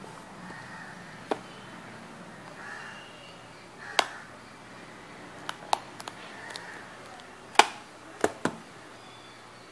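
A fingernail picking at the seal sticker on a small cardboard phone box, with sharp clicks and taps as the box is gripped and turned. The clicks come one at a time, with a quick cluster in the middle, and the loudest comes about three quarters of the way in.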